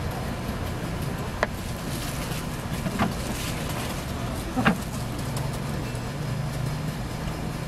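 Steady outdoor street-market background noise with a low rumble, broken by three short sharp clicks about a second and a half apart.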